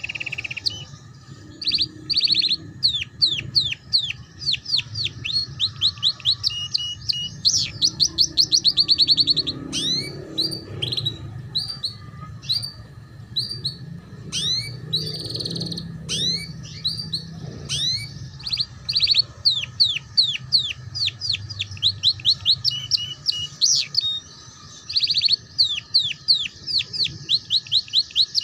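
Domestic canary singing a long song of rapid trills in the 'ngeriwik' style: quick runs of many repeated falling high notes, phrase after phrase, with short breaks between them.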